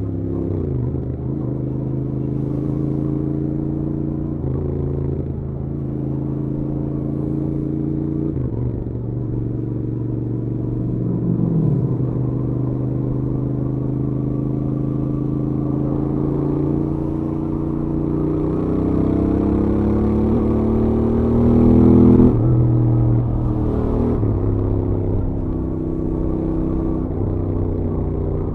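Royal Enfield Interceptor 650's parallel-twin engine through its stock exhaust, riding at highway speed. The engine note dips and rises several times, then climbs steadily and is at its loudest about three-quarters of the way through before dropping sharply.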